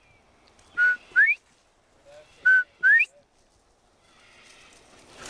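Northern bobwhite quail calling its whistled 'bob-white', twice: each call a short level note followed by a higher note that rises.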